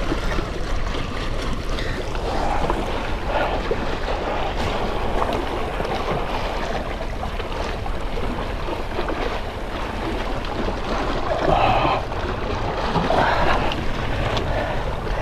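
Wind rumbling on the microphone over sea waves washing against shoreline rocks.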